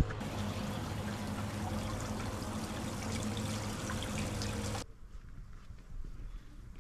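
Water trickling and pouring in a steady stream, with a low steady hum underneath. It cuts off suddenly about five seconds in, leaving a quieter scene with faint scattered ticks.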